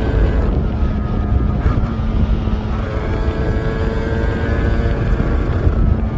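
Yamaha RZ350's two-stroke parallel-twin engine running steadily, its pitch shifting a little as the revs change.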